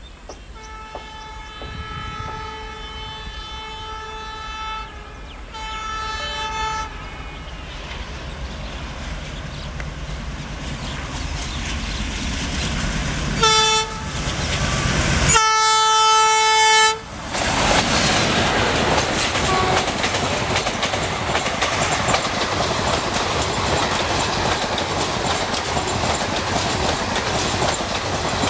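WDM-3D diesel locomotive horn sounding four blasts (two long, a short one, then the loudest long blast) as the locomotive approaches at speed, growing louder. The train then rushes past at speed, a steady roar of the passing coaches with wheels clattering over the rail joints.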